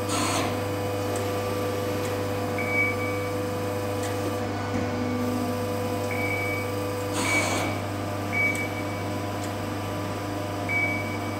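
Amada FBDIII-8025 hydraulic press brake running on test, with a steady motor and pump hum. There is a short hissing swell right at the start and another about seven seconds in, and several brief high-pitched whines along the way.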